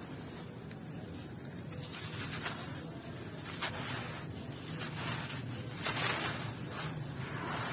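Dry, gritty sand and fine gravel crumbled between bare hands and poured back onto the pile in a crunchy, grainy trickle. There are a few sharper crunches as handfuls break apart.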